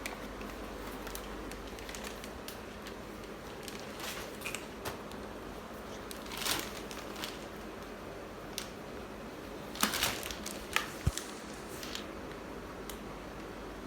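Scattered light clicks and rustles of cardboard and plastic packaging being handled, with a steady background hiss; a few sharper clicks come close together about ten seconds in.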